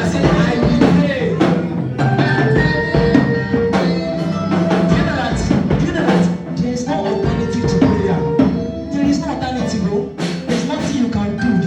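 Gospel worship music with drums and percussion keeping a steady beat, and some singing.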